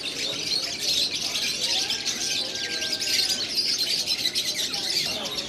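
Dense, unbroken chatter of many small caged parrots chirping at once, high-pitched and overlapping.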